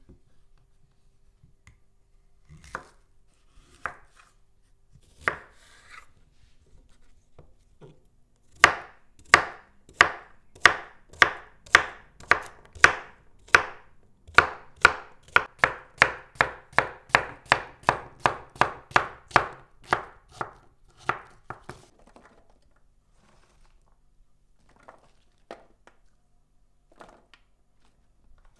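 Chef's knife chopping zucchini on a bamboo cutting board: a few separate cuts, then a steady run of knife strikes on the wood, about three a second, for roughly twelve seconds. A few faint knocks follow near the end.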